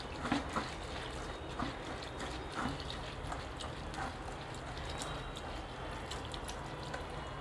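Water poured and trickling through a steel mesh strainer as fingers rub and squish wet poha (flattened rice) to wash it, draining into the bowl below, with small splashes here and there.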